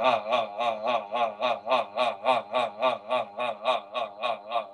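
A man holding one low sung vowel while bouncing his body from the knees, so the tone wobbles in pitch and loudness about four times a second. It is a bouncing voice exercise that lets the body's bounce shake the sound.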